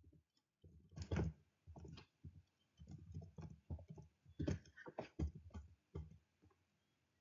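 Computer keyboard being typed on: an irregular run of key clicks and thuds that stops about six and a half seconds in.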